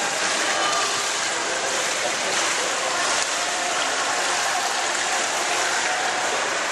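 Indoor swimming pool water noise: a steady wash of water lapping at the pool wall and running into the overflow gutter.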